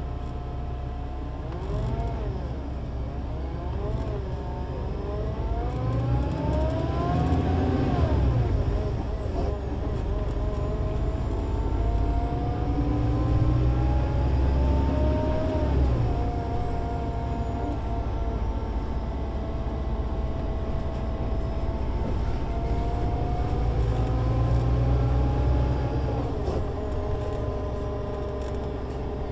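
Solaris Urbino 18 IV articulated bus's DAF diesel engine and Voith DIWA 6 automatic gearbox pulling away from a near idle. The engine note climbs and drops back at upshifts about eight and sixteen seconds in, holds through a steady stretch, and eases off near the end. A faint high whine rises and falls with it.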